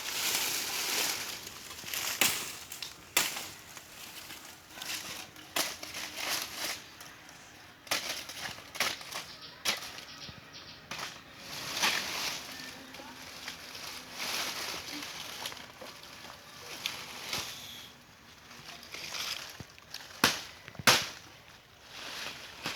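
Tree cutting by hand: sharp chopping knocks, irregularly spaced a second or two apart, with rustling of leaves and branches between them.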